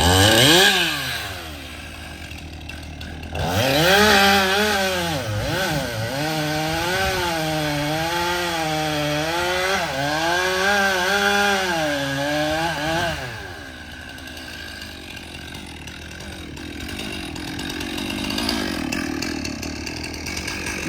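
Chainsaw cutting into an oak trunk. Between about 4 and 13 seconds in it runs loud, its pitch wavering up and down as the engine bogs and picks up under load in the wood; before and after, it runs more quietly.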